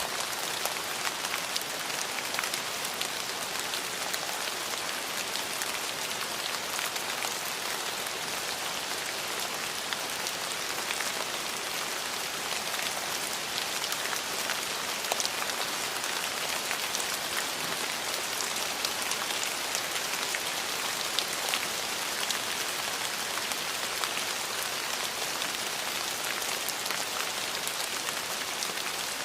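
Steady rain falling, a continuous hiss with many individual drop ticks spattering on surfaces.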